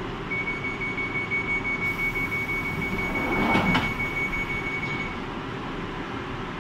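Northern line 1995 Stock tube train at a platform: a high steady door-warning tone sounds while the sliding passenger doors close, meeting with a thud about three and a half seconds in, over the steady hum of the standing train.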